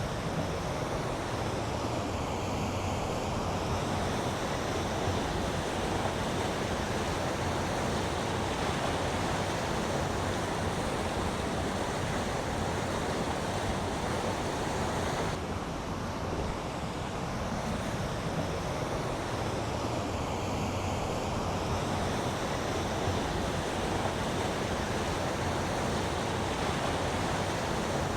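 Fast-flowing river water rushing steadily: the River Wharfe running through its narrow rocky channel.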